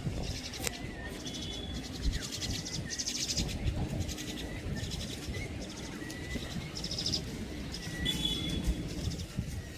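Birds calling: repeated short, high trills and brief whistled chirps, over a steady low rumble.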